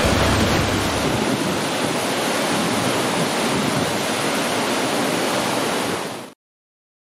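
Waterfall: a steady rush of falling water and spray, which cuts off suddenly a little after six seconds in.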